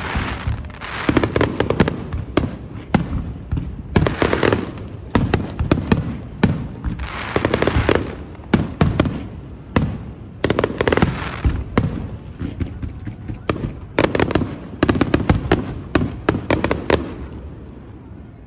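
Fireworks show: aerial shells bursting in rapid volleys of sharp bangs, one cluster after another, thinning out and dying away near the end.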